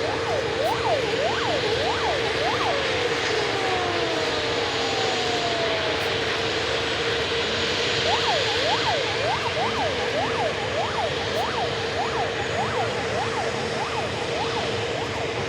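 Emergency vehicle siren yelping in quick rising-and-falling sweeps over a steady blanket of aircraft engine noise with a constant whine. The sweeps stop for a few seconds in the middle, when a few long falling tones are heard, then resume.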